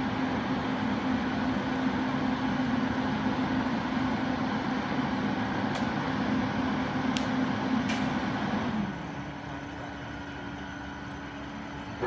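Heavy machinery engine running steadily, then easing off to a quieter, lower run about nine seconds in. A few faint clicks are heard shortly before it eases off.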